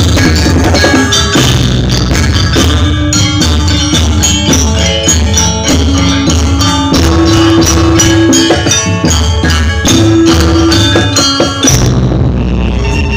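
Janger gamelan ensemble playing dance music: metal mallet instruments strike a fast, dense run of notes over drums and deep sustained tones.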